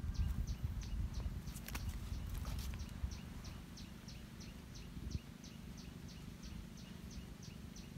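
Short, high chirps repeated evenly about three times a second, each falling slightly in pitch, from a small calling animal. Under them is a low rumbling noise, loudest in the first three seconds, with a few faint clicks about two seconds in.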